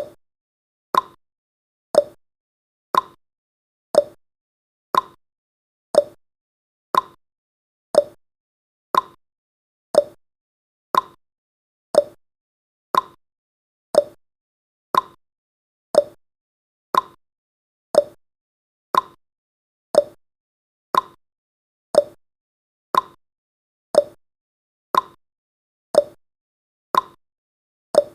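Countdown timer's clock-tick sound effect: one short, sharp tick every second, each dying away quickly, steady throughout.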